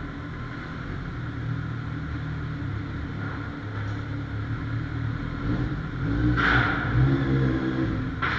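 Kawasaki Ninja 1000's inline-four engine running at low speed, revving up and getting louder over the last two seconds. A short hiss sounds about six and a half seconds in.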